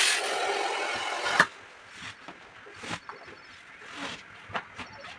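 A loud hiss lasting about a second and a half that stops abruptly with a sharp knock, then scattered thuds and rubbing of rubber as a truck tyre's inner tube is pulled out of the tyre.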